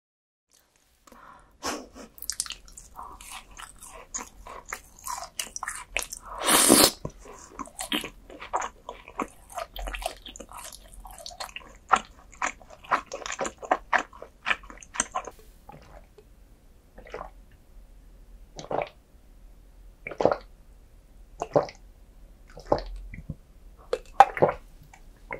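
Close-miked eating sounds of roasted beef bone marrow: wet chewing and smacking, dense for the first half, with one louder smack about seven seconds in. It then thins to a handful of separate mouth sounds over a second apart, ending with swallows of a drink from a glass.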